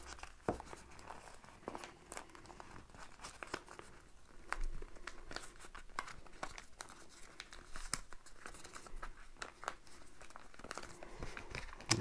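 Stack of paper airplane template sheets handled and leafed through by hand: quiet rustling and crinkling of paper with scattered small ticks.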